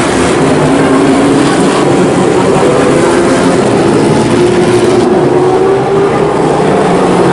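Historic Formula 1 car engines running at moderate revs on a demo run, their notes overlapping and slowly rising and falling in pitch.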